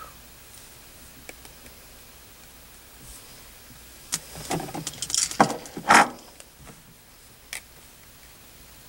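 Plastic toy rattling and clattering in a short run of bursts about four to six seconds in, loudest near the end of the run, with one more sharp click a little later; otherwise quiet room tone.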